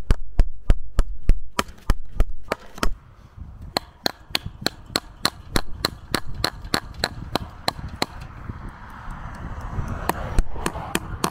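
Steady hammering, about three sharp blows a second, as fence staples are driven into wooden posts to fix a wire wildlife net.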